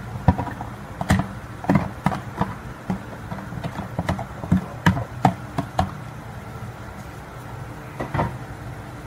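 Black spatula knocking and scraping against a plastic container, tapping chopped cabbage out into a pot of soup: a quick run of irregular taps that stops about six seconds in, then one more tap a couple of seconds later.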